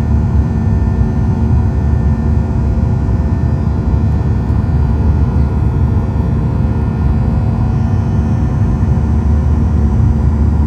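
Steady cabin noise of a Boeing 737-800 airliner in flight: the CFM56 engines and the airflow make a loud, even low rumble with a few steady hum tones over it.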